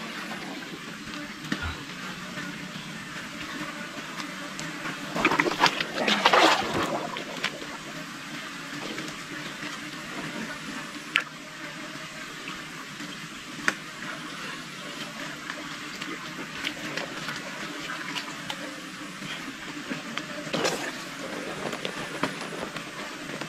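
Wet mud and water being handled by hand as tiger prawns are picked out: squelching and sloshing over a steady background hiss, with a louder stretch of it about five to seven seconds in and a few sharp clicks.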